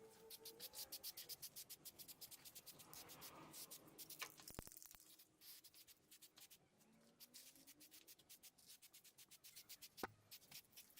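Faint, quick rubbing or scraping strokes, several a second and evenly paced, with a short pause midway.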